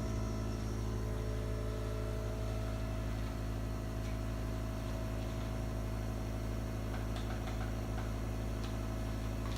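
Small compressor nebulizer running with a steady electric hum as it turns liquid medicine into mist.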